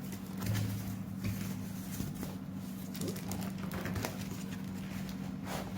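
Cardboard box being handled and opened: scattered light taps, clicks and rustles over a steady low hum.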